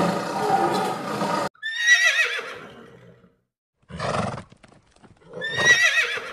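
A tiger's roar cuts off sharply about a second and a half in. Then a horse whinnies twice, a wavering call that falls in pitch, with a few galloping hoofbeats between the two whinnies.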